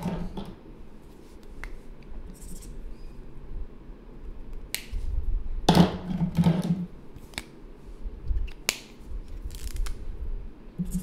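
Small handling noises at a drawing desk: scattered sharp clicks and taps with brief scratchy rustles of paper and art supplies, the loudest rustle a little over halfway through.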